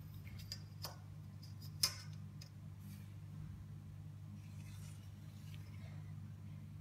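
A few light clicks and taps of a ruler being set down and shifted on a plastic card case, the sharpest about two seconds in, over a steady low hum.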